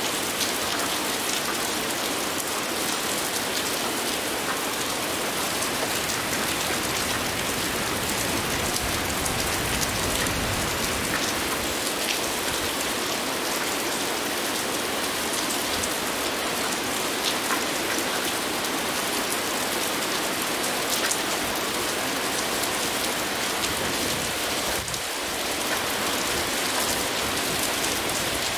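Heavy rain falling steadily: a dense, even hiss of many drops.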